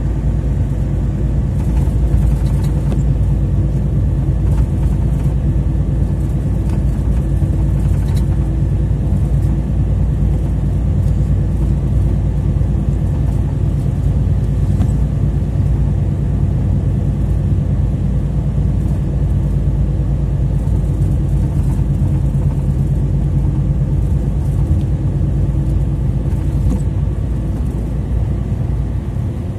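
A truck being driven along the highway, heard from inside the cab. The engine runs at a steady speed under a constant low road rumble, with no change in pace.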